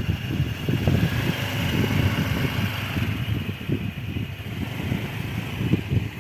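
A vehicle running, with an irregular low rumble of wind buffeting the microphone.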